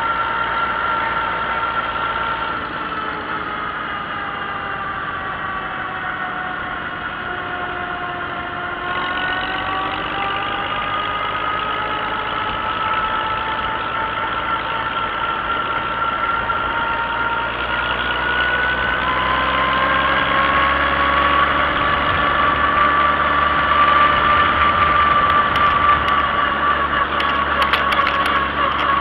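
Old tractor's engine running under way. Its pitch sags a little about six to eight seconds in, then climbs slowly as it picks up speed, and it gets louder over the last third.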